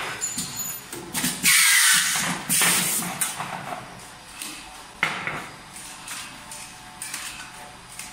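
Tube film pouch form-fill-seal packaging machine running: irregular clicks and clatter with short bursts of hissing. The loudest hiss lasts about a second, near two seconds in.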